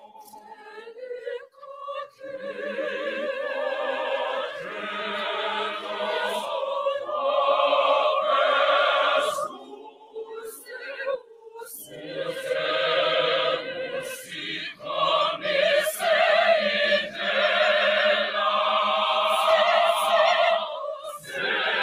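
School choir singing in parts, in long phrases broken by a pause about ten seconds in and another near the end.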